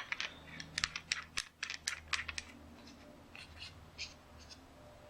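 Quick, light metallic clicks and taps of small parts being handled: the contact tip and nozzle of a flux-core welding gun being refitted. About a dozen come in the first two and a half seconds, then a few sparser ones.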